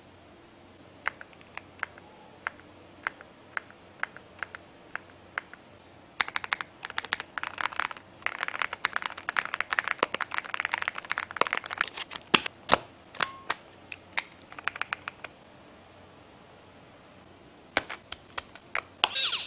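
AULA M75 mechanical keyboard being typed on: single key presses about twice a second, then fast continuous typing with a clacky sound. After a short pause, a few sharper clicks near the end come from its hot-swap switches being worked with a switch puller.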